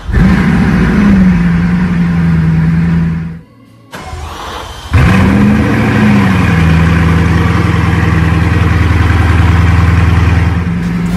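Bugatti Chiron's quad-turbocharged 8.0-litre W16 engine starting twice. Each time it catches, flares up in revs and settles into a steady idle. The first start cuts off after about three seconds, and the second fires about five seconds in.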